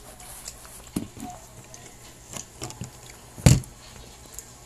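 Eating watermelon close to the microphone: a few scattered soft taps and clicks of bites and handling, with one louder thump about three and a half seconds in.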